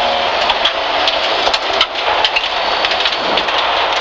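Inside a BMW 325i E30 rally car at speed on a gravel stage: tyres hissing on loose gravel, with stones pinging and rattling against the underbody in quick, irregular clicks, and the 2.5-litre straight-six running underneath.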